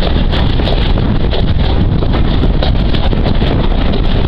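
Wind buffeting the microphone at an open window of a moving train, over a steady low rumble from the train running along the line.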